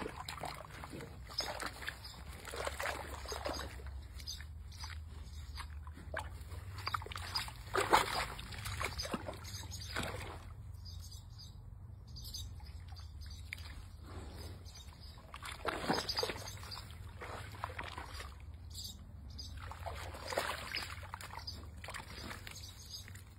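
Warthog wallowing in a shallow mud puddle: irregular sloshing and splashing of muddy water, loudest about eight seconds in and again around sixteen and twenty seconds.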